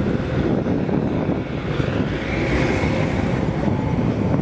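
Street traffic: a steady low rumble of passing vehicles.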